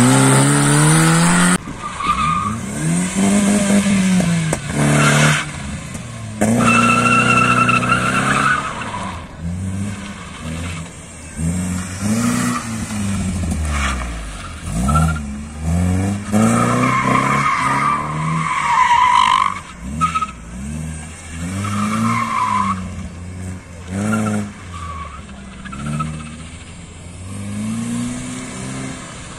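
BMW E36 Compact slalom car's engine revving up and dropping back again and again as it is thrown around cones, with several bursts of tyre squeal as the tyres slide on the tarmac.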